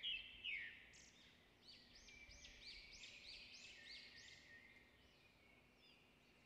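Faint bird chirping in the background, otherwise near silence: a few chirps at the start, then a run of quick repeated high chirps, about three a second, from about a second in until past the middle.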